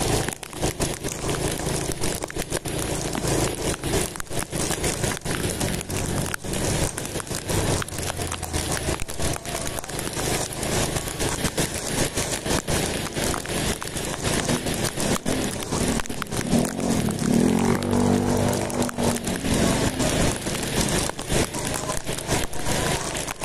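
Wind and rain buffeting a motorcycle-mounted camera microphone during a ride in the rain: dense crackling and scraping over the low hum of the motorcycle engine. A pitched engine-like sound swells for a few seconds past the middle.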